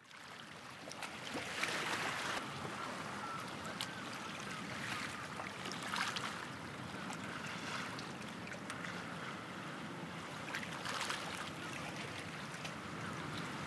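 Sea waves washing in, swelling every few seconds over a steady rush of water, fading up from silence at the start.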